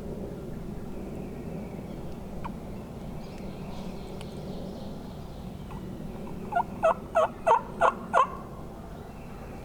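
Turkey yelps: a series of six loud, evenly spaced notes, about three a second, starting about six and a half seconds in.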